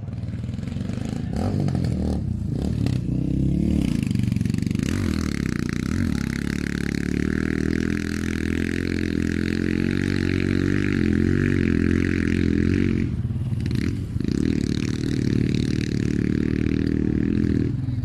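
Motorcycle engines running and revving, a dense steady drone, with a higher whine joining about five seconds in and dropping away around thirteen seconds.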